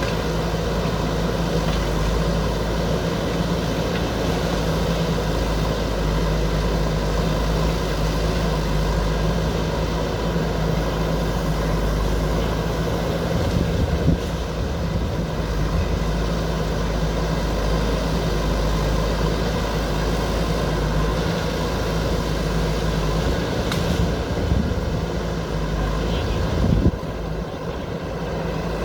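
JCB backhoe loader's diesel engine running steadily while it works, with a couple of brief clunks from the machine.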